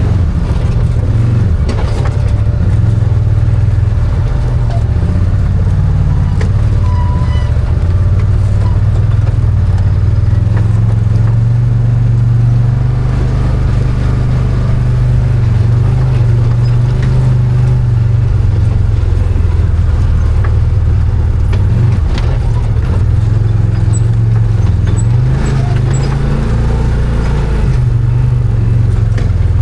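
Arctic Cat Wildcat 1000 side-by-side's V-twin engine running under way, a loud steady drone whose pitch rises and falls as the throttle changes.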